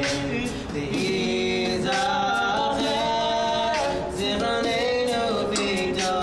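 Male voices singing a cappella in harmony, with long held notes, over beatboxed percussion: short sharp hits recurring throughout.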